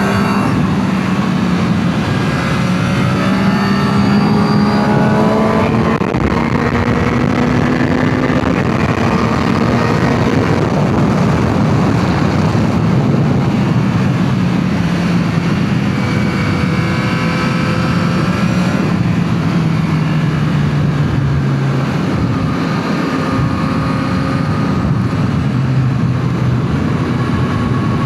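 Yamaha MT-09 SP's inline three-cylinder engine with its stock exhaust, heard from the bike while riding. The engine note climbs under throttle and drops away as the rider rolls off and shifts, over a steady rush of wind and road noise.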